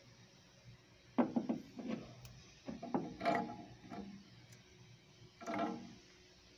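Three short bouts of mechanical clicking and clatter, about a second in, around three seconds in and near the end: tools and metal parts being handled around a freshly fitted Solex 30 PIC carburettor.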